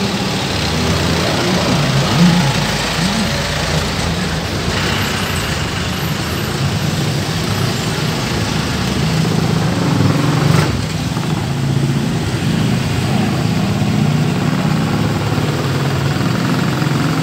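Vehicle engines running close by, a small truck and a motorcycle among them, as a steady low hum with street noise. A single sharp click about ten and a half seconds in.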